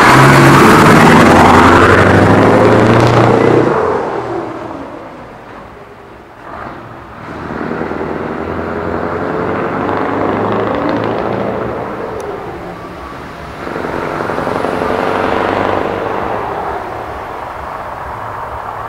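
Scania V8 torpedo truck's V8 engine pulling away, its exhaust popping and rattling. Loud at first, it fades after about four seconds, then swells twice more further off as it keeps accelerating.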